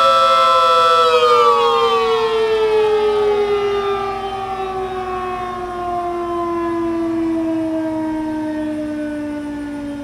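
3D-printed miniature Federal Signal SD10 dual-tone (12/9 port) siren, its motor run from a regulated 5 volts, sounding a steady two-tone chord. About a second in, power is cut and it winds down, both tones gliding lower and slowly fading.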